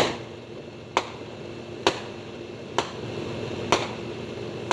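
Fireworks going off, a series of sharp bangs spaced about a second apart, like the shots of a multi-shot cake.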